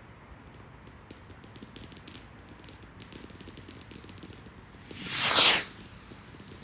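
Fireworks going off: a run of sharp crackling pops, then about five seconds in a loud whoosh that falls in pitch over about half a second.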